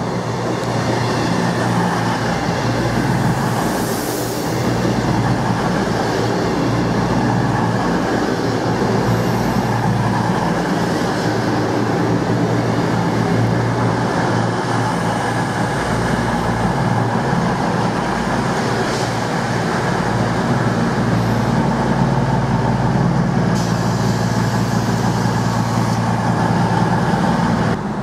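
Class 221 Super Voyager diesel-electric multiple unit, two units coupled, running into the platform and slowing to a stop, with the steady hum of its underfloor diesel engines over the rumble of the wheels.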